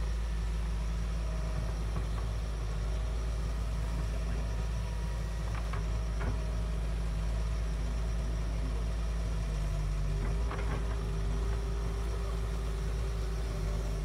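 Doosan DX140W wheeled excavator's diesel engine running steadily while the machine swings and digs, with a few short knocks. A steady higher tone joins the engine about ten seconds in.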